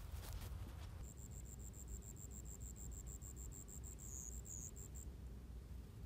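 A run of rapid, high-pitched chirps, about five a second, starting about a second in and stopping about a second before the end, with a couple of notes dipping lower near the end of the run, over a steady low rumble.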